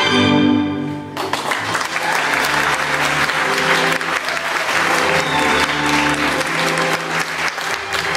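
Audience applause breaks out about a second in and keeps going, over recorded orchestral ballet music with strings that plays on beneath it.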